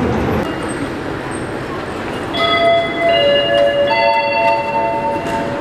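Station public-address chime: three bell-like notes struck about a second apart, starting a little over two seconds in and ringing on, the signal that an announcement is about to follow. Steady station background noise runs underneath.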